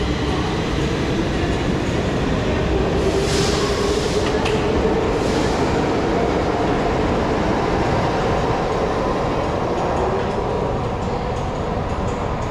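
Stockholm metro train running at the platform: a steady rumble with a drawn-out motor whine that slowly rises and falls back, and two short hisses about three and five seconds in.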